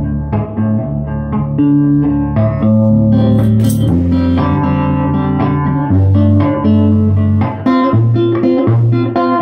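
Electric guitar played through a Filmosound projector amplifier converted to an EL84 valve amp, heard through its 10-inch Jensen ceramic speaker in the projector case: a run of picked notes over low bass notes. The player says the cabinet rattles a lot because the speaker and parts inside are not yet tied down.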